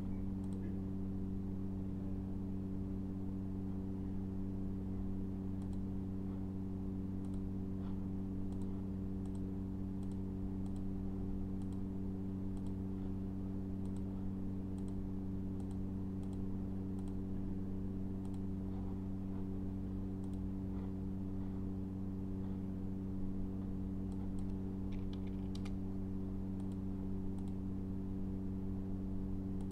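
Steady low electrical hum with faint, scattered computer mouse clicks as buttons are clicked, a few close together near the end.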